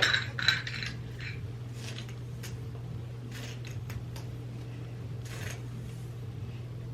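Soft rustles and a few light clicks of hair being handled and styled, strongest in the first second, over a steady low hum.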